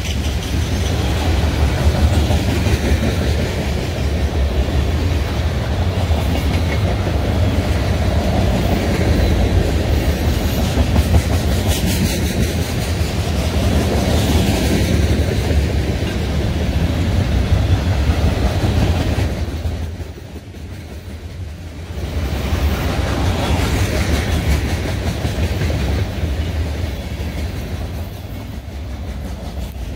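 Freight cars (tank cars and covered hoppers) rolling past close by: a steady rumble of steel wheels on the rails that eases briefly about two-thirds of the way through.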